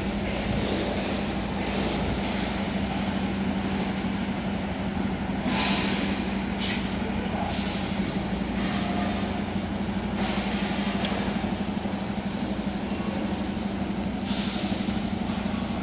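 Heavy truck's diesel engine idling steadily, with a few short hisses of air in the middle and again near the end.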